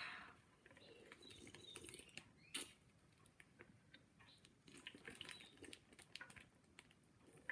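Faint crinkling and clicking of a water-filled plastic freezer bag being handled and worked at the mouth, with one sharper click a little over two and a half seconds in.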